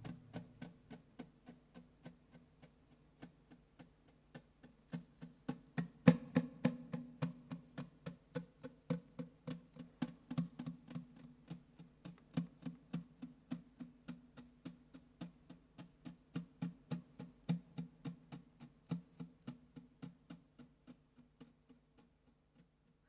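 Quiet, sparse percussive soundtrack music: a steady ticking pulse over a low, throbbing tone, with a heavier hit about six seconds in. It fades out shortly before the end.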